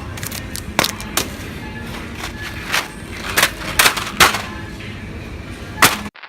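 A series of sharp, irregular knocks and clicks, about a dozen, over a low steady background, cutting off abruptly near the end.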